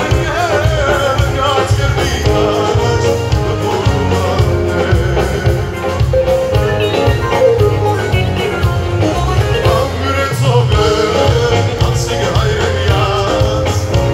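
Live band music: drums and bass pulsing under a melody, with a male voice singing into a microphone.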